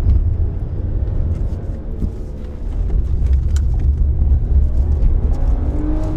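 Car being driven on a wet track: a steady low rumble of engine and road noise, with the engine note climbing about five seconds in.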